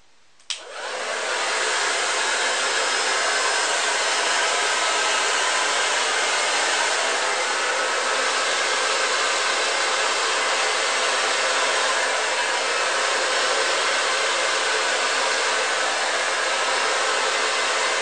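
Babyliss TT Tourmaline Titanium 3000 hair dryer switched on with a click about half a second in. It spins up over about a second, then blows with a steady rush of air.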